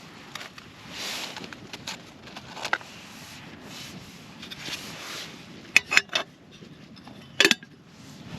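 Wind gusting in swells that rise and fall, with a few sharp clicks and knocks of handled gear, the loudest a cluster about six seconds in and a pair about seven and a half seconds in.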